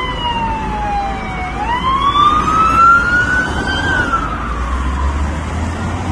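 Emergency vehicle siren wailing in slow sweeps: the pitch falls, climbs again from about a second and a half in, and starts to fall near the end. A low rumble of highway traffic runs underneath.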